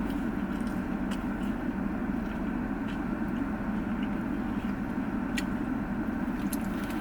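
Steady low rumble of a car cabin, with a few faint clicks.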